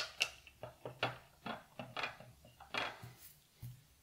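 Watercolour half pans being handled and pressed into a metal palette tin: a quick run of light clicks and taps, about a dozen, that stops shortly before the end.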